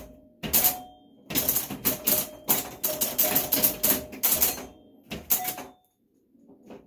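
Super Flite electromechanical pinball machine in play: rapid bursts of mechanical clattering from relays, solenoids and score reels, with short ringing tones mixed in. The clatter stops about six seconds in.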